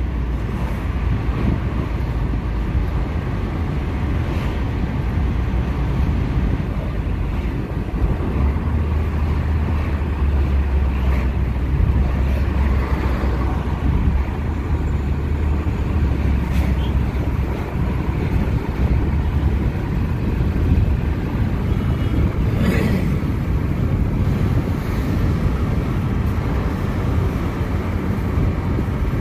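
Car interior road noise while driving: a steady low rumble of engine and tyres, heavier for several seconds in the middle, with one short knock about three quarters of the way through.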